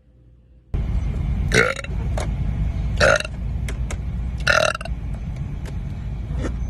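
A woman burping three times, each burp short and about a second and a half apart, over a steady low rumble in the background.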